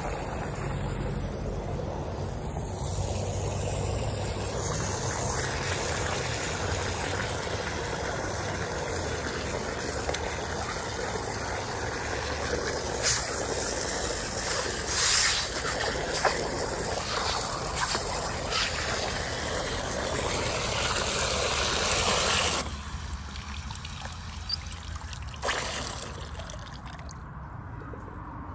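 Water running steadily from a garden hose into a plastic bucket, stopping abruptly about three-quarters of the way through.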